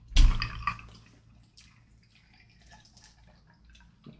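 Close-miked wet eating sounds: a brief, loud, moist burst lasting about a second at the start, then faint soft mouth clicks and smacks.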